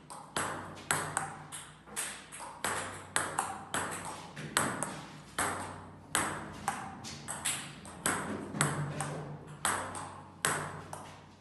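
Table tennis ball being hit back and forth in a rally, the light plastic ball clicking off the table and the paddles in a steady rhythm of about three hits a second.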